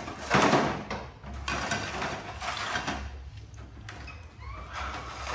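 Baby monkey crying out in a run of harsh, noisy calls, the loudest just after the start, with a few thinner rising calls near the end.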